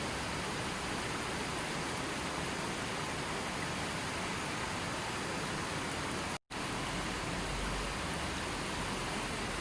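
Steady, even noise of falling water, broken once by a split-second dropout to silence about six and a half seconds in.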